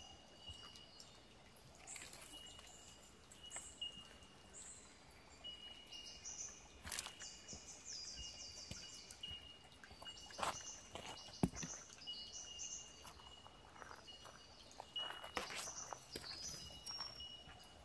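Forest birds calling, with short high chirps and quick trills, over a thin high steady tone that keeps breaking off and coming back. Scattered crunches and clicks of footsteps on the track.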